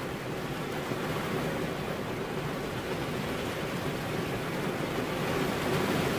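Steady rain falling, an even unbroken hiss that swells slightly near the end.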